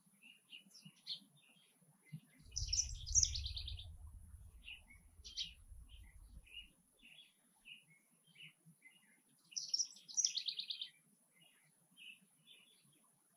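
Backyard songbirds chirping repeatedly, with two short songs, about three seconds in and about ten seconds in. Each song starts high and ends in a fast trill. A low rumble runs for a few seconds under the first song.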